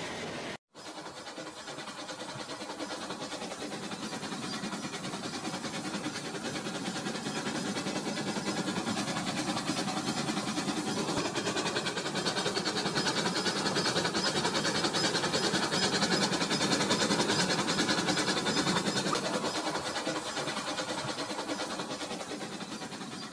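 Battery-powered toy train running along its plastic track, growing louder until a little past the middle as it comes close, then fading. The sound cuts out briefly just after the start.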